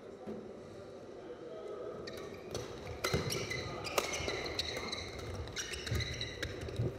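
Badminton doubles rally: rackets smacking the shuttlecock with sharp cracks, mixed with short high squeaks of players' shoes on the court, starting about two seconds in and quickening. The hall echoes.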